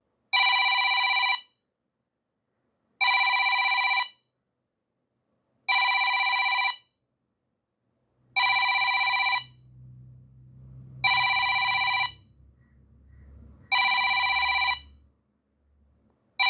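Digital countdown timer's alarm ringing as the countdown runs out: a bell-like ring about a second long, repeated six times at even gaps of nearly three seconds.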